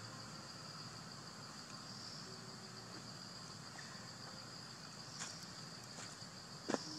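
Insects trilling in a steady high-pitched drone, with a few sharp clicks in the last two seconds, the loudest just before the end.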